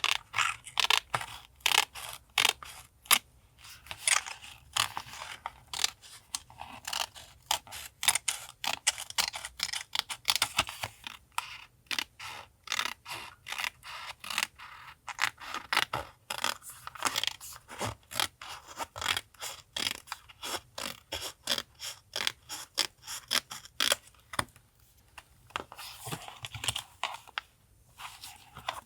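Close-miked paper being worked by hand: many quick, crisp scratching and scraping strokes of paper, several a second, with short pauses.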